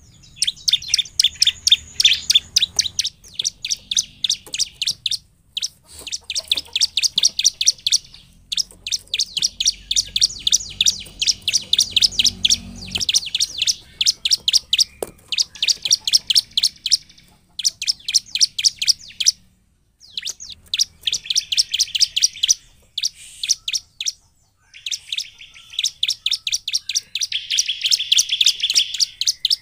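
Bar-winged prinia (ciblek) singing: long runs of rapid, sharp, high chip notes, several a second, in phrases of a few seconds broken by short pauses.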